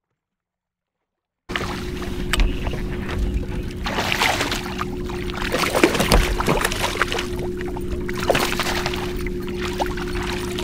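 A hooked bass splashing and thrashing at the water's surface beside a kayak, loudest about four to seven seconds in as it is brought to the net, over a steady low hum. The sound begins about a second and a half in, after a silent gap.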